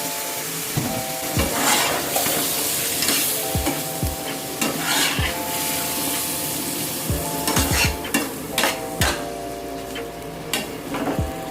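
Food frying and sizzling in a pan as it is stirred, with a steady hiss and repeated clicks and scrapes of the cooking utensil against the pan.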